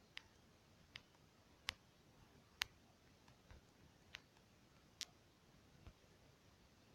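About six short, sharp clicks, irregularly spaced roughly a second apart.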